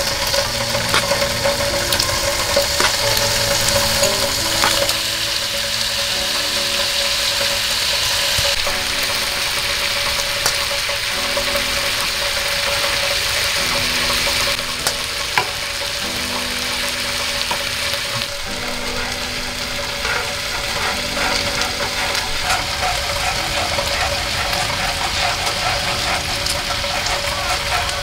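Chicken pieces sizzling steadily in a hot cast-iron skillet, with occasional light clicks of metal tongs against the pan. Soft background music with held notes plays underneath.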